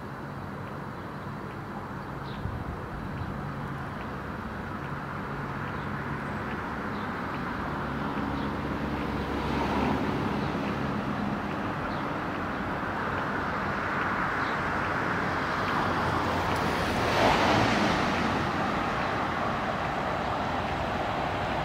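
A city transit vehicle running with a steady low hum, growing gradually louder as it approaches, with a brief louder swell about three-quarters of the way through.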